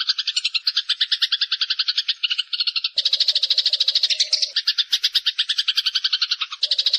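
Eurasian tree sparrows chattering: a fast, continuous run of clear chirps, about ten a second, that shifts abruptly about three seconds in and again near the end.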